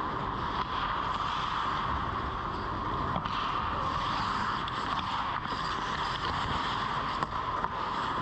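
Ice hockey play in an indoor rink, heard from a camera mounted in the goal: a steady hum and hiss with skates scraping the ice, and a couple of faint sharp knocks about three and seven seconds in.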